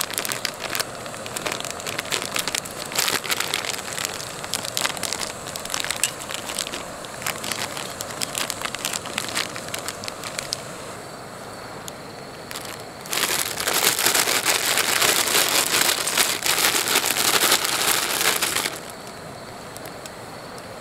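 Plastic and foil food packets crinkling and rustling as they are handled and opened, in many sharp crackles, then a louder stretch of continuous rustling lasting about five seconds past the middle that stops abruptly.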